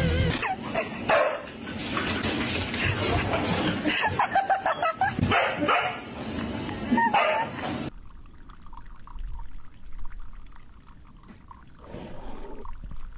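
A dog barking and yipping in short repeated calls for about eight seconds, then a much quieter stretch.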